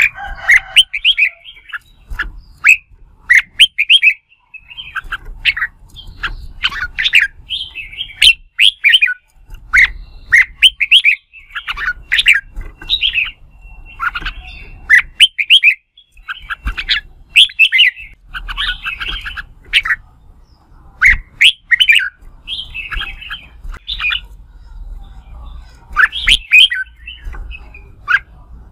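Red-whiskered bulbul singing its aggressive, competitive song: rapid phrases of short, quickly sliding whistled and chattering notes, repeated with brief pauses.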